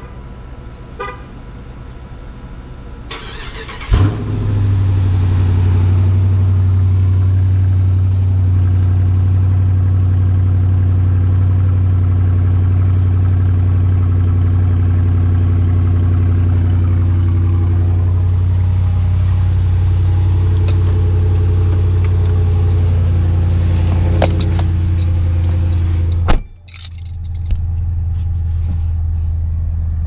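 2017 Dodge Charger R/T's 5.7 Hemi V8 on its stock factory exhaust, cold-started. The starter cranks briefly, the engine catches with a sharp burst about four seconds in, then it settles into a steady, deep cold idle. Near the end the sound cuts off suddenly and the idle comes back, heard from inside the cabin.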